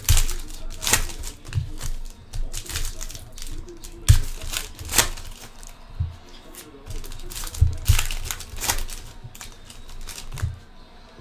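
Trading-card pack wrappers crinkling and tearing as Panini Select soccer packs are opened and handled, in a run of irregular sharp crackles.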